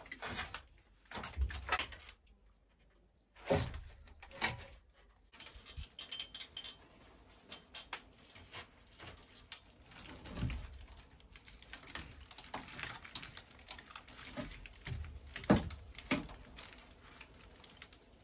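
Reed matting rustling and clattering against wooden roof beams as it is unrolled and pushed into place. Irregular knocks and rattles, the sharpest about three-quarters of the way through.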